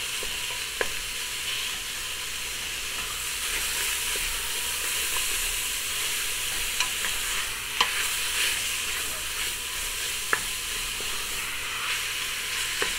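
Ground beef sizzling and frying in a hot stainless steel pot while a wooden spoon breaks up the chunks, with a few sharp taps of the spoon against the pot. The loud, steady sizzle is the sign that the pan is hot enough to brown the meat rather than steam it.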